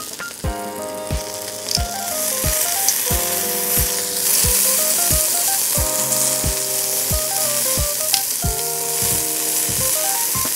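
Thick block of seasoned beef tongue sizzling on the hot mesh net of a charcoal shichirin grill, the sizzle growing louder about two seconds in. Background music with a steady beat plays under it.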